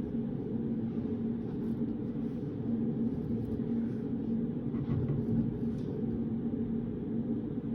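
Steady low room hum of a study room's background noise, with a constant faint tone in it. A few faint light taps or rustles come about five seconds in.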